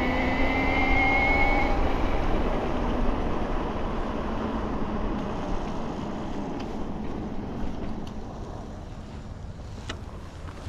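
72V Bafang BBSHD mid-drive e-bike motor whining and rising in pitch for about two seconds, then cutting out, while wind and riding noise slowly fade as the bike slows.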